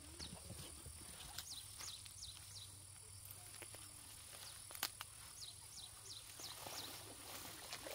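Rural outdoor ambience: a steady high insect drone, with runs of quick, high, falling chirps at about three a second. One sharp click about five seconds in.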